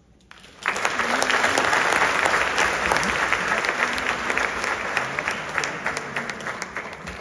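Audience applauding, breaking out abruptly just under a second in and slowly tapering off near the end.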